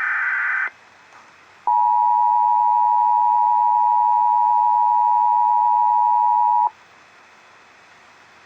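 Emergency Alert System broadcast: the last short burst of the screeching digital header ends about half a second in. After a brief pause comes the EAS two-tone attention signal, two steady tones sounding together just under 1 kHz, which holds for about five seconds and cuts off sharply, leaving faint hiss.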